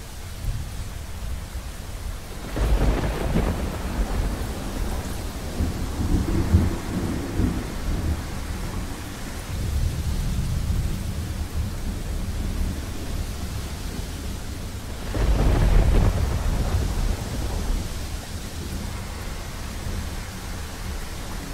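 Thunder over steady rain: two loud claps, about two and a half seconds in and again about fifteen seconds in, each trailing off into a low rolling rumble.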